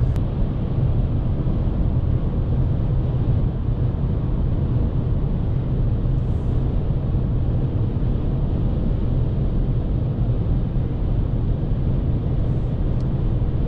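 Cabin noise of a 2019 Volkswagen Polo's 1.0-litre three-cylinder turbo petrol engine under way, with road noise: a steady low rumble heard from inside the car.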